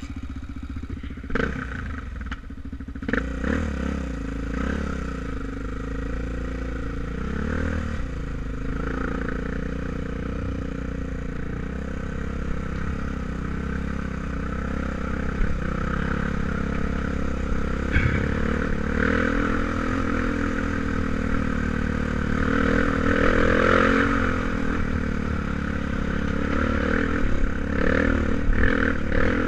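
Enduro dirt bike engine running under way, its revs rising and falling as it rides over the rough track. A few sharp knocks come in the first few seconds.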